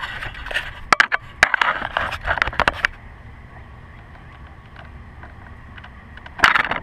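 Handling noise: clicks, scrapes and rustles as the camera is moved and rubber hoses are handled in a car's engine bay. It is busiest in the first three seconds, then goes to a few faint ticks, with a short loud rustle near the end.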